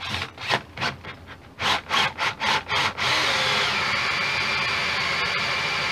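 Cordless drill driving a 1.5-inch hole saw into a pine board: short bursts of cutting for the first three seconds, then the drill runs steadily with a whine that drops in pitch once, about a second later.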